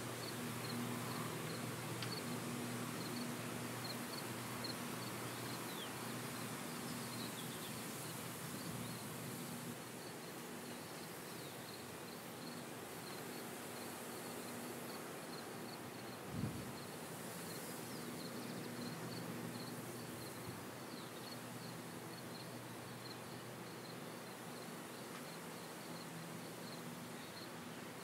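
Far-off John Deere S550 combine harvester and tractor engines droning steadily across an open wheat field, overlaid with an insect chirping in a steady rhythm. A single short low thump comes about sixteen seconds in.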